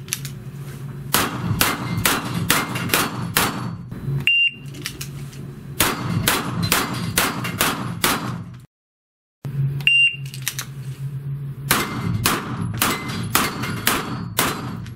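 A shot timer beeps three times, and after each beep a pistol fires a quick string of about six shots at steel falling plates, the hits clanging on the plates. A steady low hum runs underneath.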